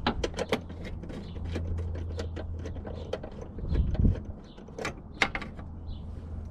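Hand ratchet wrench clicking and metal tool clinks as small 10 mm bolts are undone under the hood, in many irregular sharp clicks. A low steady hum runs beneath for about the first half.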